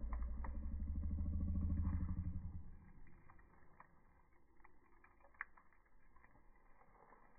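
A low engine rumble with a fast, even pulse fades out about two and a half seconds in. Only faint scattered clicks remain after it.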